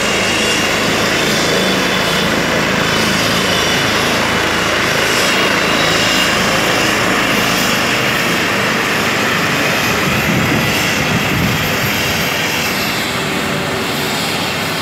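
Twin-turbine Airbus emergency medical helicopter running on the ground just after landing, main rotor turning: loud, steady turbine whine over the rotor's wash.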